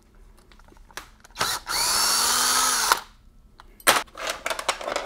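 An electric gun spins a bolt, already shocked loose, out of a T5 five-speed transmission's housing. Its motor whines for about a second and a half, speeding up a little and then winding down as it stops, with no hammering. Light metallic clicks and clatter follow near the end.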